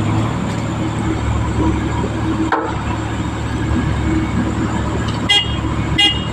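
Heavy diesel machinery engine running steadily, with two short horn toots near the end.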